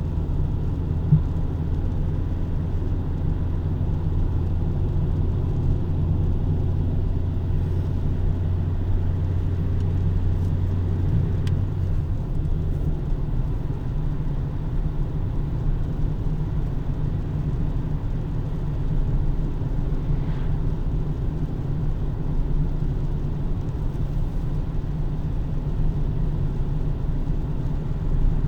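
Steady low rumble of a car on the road. A deeper drone under it fades out about twelve seconds in.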